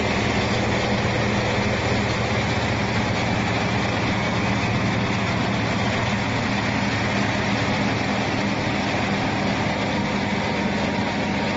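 Mealworm separating machine running steadily: the electric motor of the vibrating sieve and blower gives a constant low hum under an even rush of fan air.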